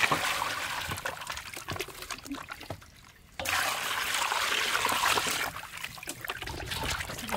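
Water poured from a container into a steel basin of raw chicken pieces, splashing as hands rub and turn the meat in the water. The pour stops briefly about three seconds in, then starts again.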